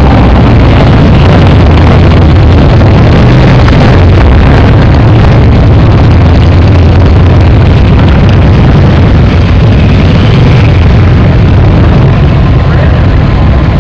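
Motorcycle engines, several cruisers and touring bikes riding slowly past one after another, making a loud, deep, steady sound.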